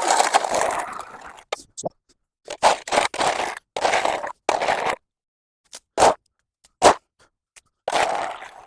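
Scraping strokes of a brush sweeping wet leaves, mud and debris across a path surface. The strokes come one after another with short pauses between them, and there are two sharper, shorter scrapes midway.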